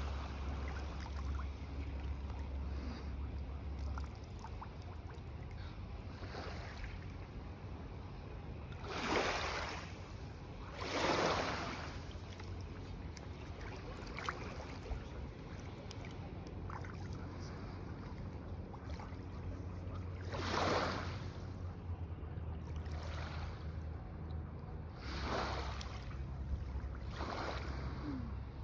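Small waves lapping and washing onto a sandy shore, with several louder swashes that swell and fade over about a second each, over a steady low wind rumble on the microphone.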